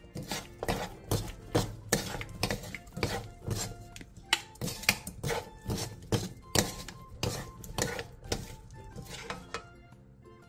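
Two wooden spatulas tossing a sausage and vegetable stir-fry in a nonstick frying pan: irregular knocks and scrapes of wood against the pan, a couple a second, stopping near the end.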